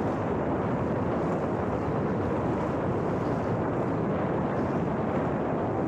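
Steady wind rushing and buffeting over the microphone of a camera carried aloft by a radio-controlled plane in flight. No clear motor or propeller tone stands out.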